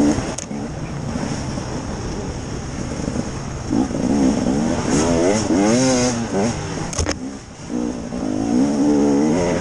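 KTM EXC 300 two-stroke enduro motorcycle engine being revved on and off the throttle while riding, its pitch rising and falling several times. A sharp click about seven seconds in, followed by a brief dip as the throttle is shut off.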